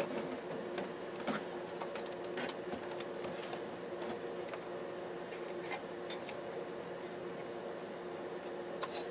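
Faint scraping and a few small clicks as the plastic and sheet-metal parts of a DVD-RW drive are handled and pried apart by hand, over a steady low hum.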